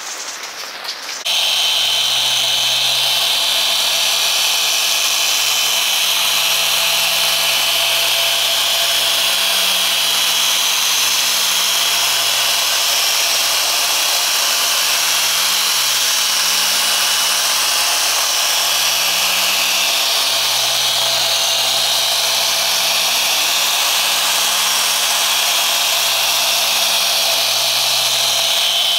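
SPTA 15 mm dual-action polisher running steadily on a car's paint with a foam pad, a steady motor whine over a low hum. It cuts in about a second in.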